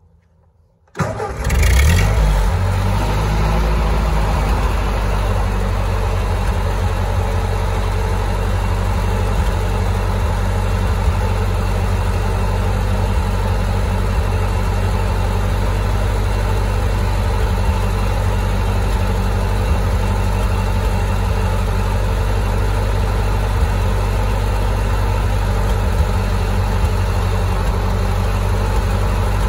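Tractor engine starting about a second in, briefly rising, then running steadily.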